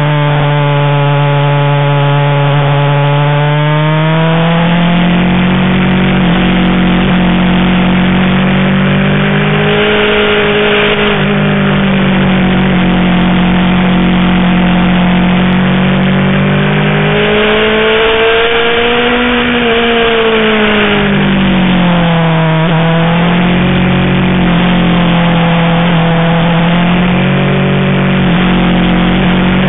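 BMW S1000RR's inline-four engine under way, its pitch rising and falling with the throttle through a run of bends. Patches of wind rush on the microphone come and go over the engine.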